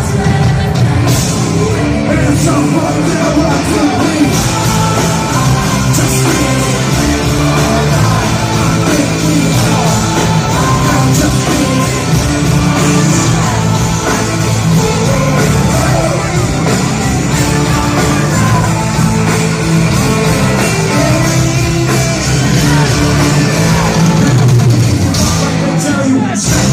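Live rap-rock concert music played loud: the band keeps a steady bass line and drums going, with singing and shouting over it.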